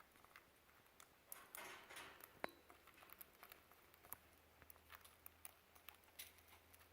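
Faint, scattered light clicks and a soft rustle: a budgie pecking at food pellets in its cage.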